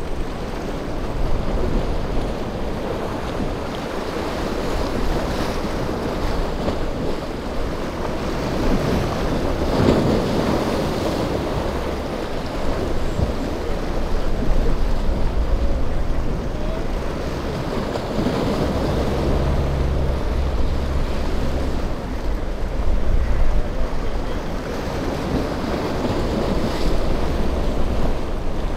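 Waves breaking and washing against a rock jetty, with wind buffeting the microphone and a small motorboat's engine running underneath as the boat crosses the rough water.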